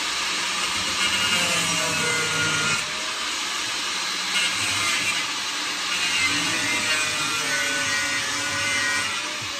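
Angle grinder cutting into the metal wall of a bus. It runs steadily, with its whine dipping and recovering as the disc bites.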